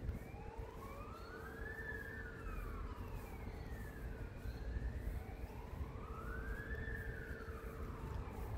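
A distant emergency vehicle's siren wailing, rising and falling slowly in pitch through two full cycles. Beneath it are a steady hum and a low rumble.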